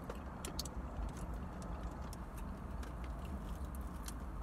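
Steady low hum inside a car, with scattered small clicks and crinkles from eating: a hot-sauce packet being torn open and food being handled and chewed.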